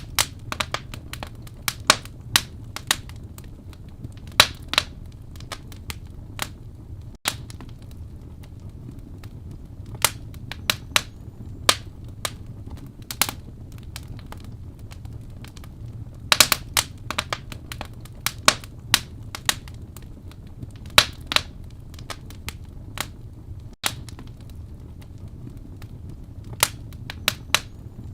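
Wood fire crackling in a fireplace: irregular sharp pops and snaps, some in quick clusters, over a steady low rumble of burning.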